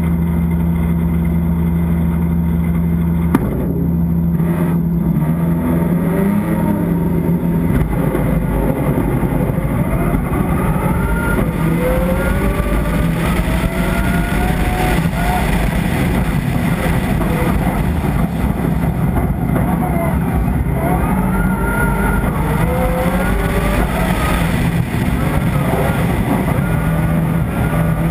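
Rally car engine heard onboard, running at a steady pitch at first, then from about three and a half seconds in revving up again and again through the gears. A heavy low rumble of road and wind noise runs under it.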